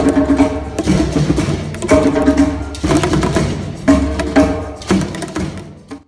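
Live drum music with djembe-style hand drums: several hard drum hits over pitched accompaniment, fading out near the end.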